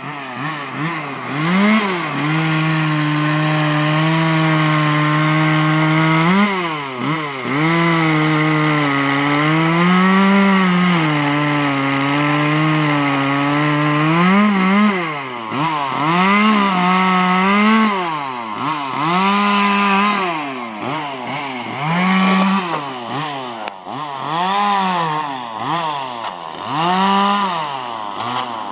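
Two-stroke chainsaw cutting into wood while carving a log. The engine runs at a steady speed for several seconds at a time in the first half, then revs up and down in quick blips about once a second in the second half.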